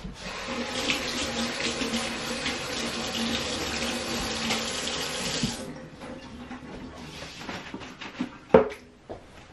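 Kitchen tap running into the sink, a steady rush of water for about five and a half seconds, then turned off. A sharp knock near the end.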